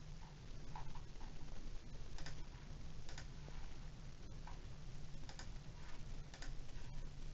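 Computer mouse clicking: a handful of short, sharp clicks spaced irregularly about a second apart, over a steady low hum.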